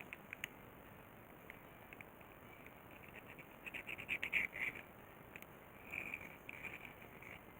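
A few light clicks, then two runs of short scratchy strokes in the second half: a line across a circuit board being gone over to mark where it will be cut.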